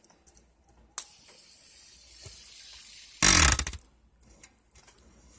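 A fidget spinner handled and spun: a sharp click about a second in, then about two seconds of steady hissing whir, then a loud brief rush of noise a little after three seconds.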